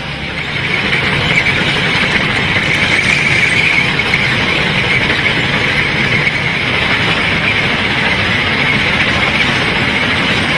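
Heavy rail-mounted track maintenance machine running steadily on the line. A low mechanical rumble sits under a harsher, high grinding noise, and the whole gets louder about half a second in.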